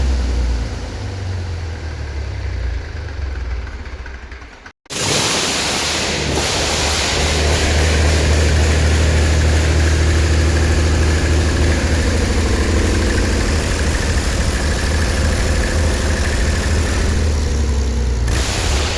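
Cummins KT-19 six-cylinder diesel engine of a 500 kVA generator set running with a deep, steady rumble. The sound breaks off for a moment about five seconds in, then the engine runs on loud and even at a steady speed.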